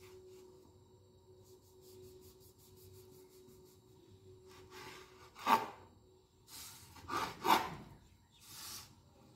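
A kitchen knife sawing the crusts off a stack of white bread slices on a plastic cutting board: faint quick strokes at first, then a few louder cuts, the loudest about five and a half and seven and a half seconds in.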